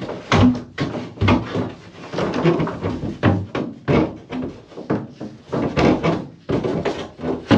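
A busy run of knocks, clunks and clatter from hands and tools working at a shower tray and its drain fittings inside a small plywood cubicle, with brief pauses between groups of knocks.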